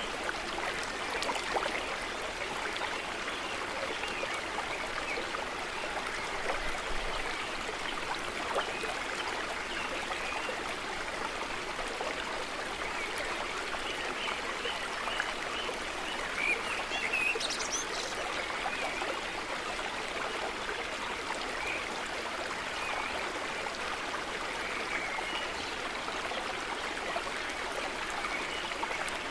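Small stream running steadily, with a few faint bird chirps over it.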